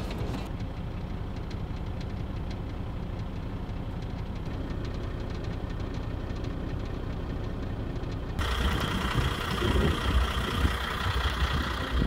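A vehicle engine running steadily. About eight seconds in the sound cuts to a louder, uneven rumble with more hiss.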